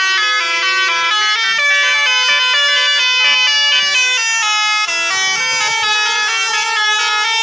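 Bus telolet horn, a multi-trumpet musical air horn on a bus, playing a quick, loud tune of short stepped notes, about four a second.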